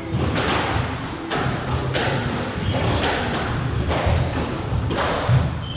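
Squash rally: the ball is struck by rackets and slaps off the court walls as sharp knocks, roughly one a second, each with a short ring of echo.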